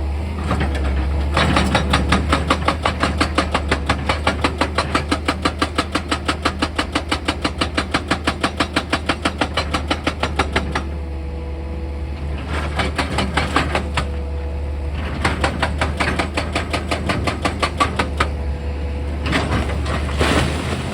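Heavy machine's diesel engine running steadily under rapid, regular percussive hammering, about six blows a second, lasting some nine seconds and then coming again in three shorter runs.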